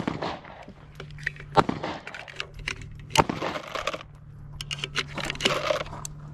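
Loose brass pistol cartridges clinking and rattling as a hand rummages and scoops them from a plastic ammo box, with a few louder sharp knocks among the clicks.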